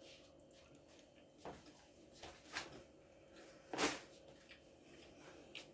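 Quiet kitchen handling sounds while food is assembled: a few soft knocks and rustles, the loudest a little under four seconds in.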